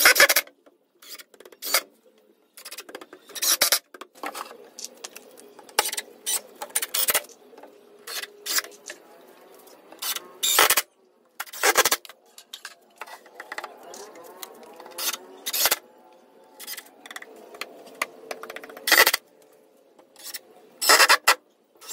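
Cordless drill driving screws into 18 mm plywood shelf partitions in short, sudden bursts, with knocks and clicks of the tool and boards between them.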